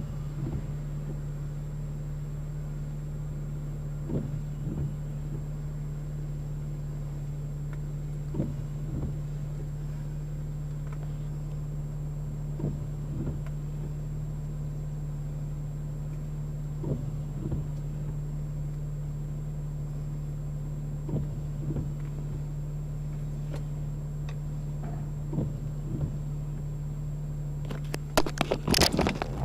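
Steady low hum of an idling car engine, with a few soft knocks and a loud burst of rustling near the end.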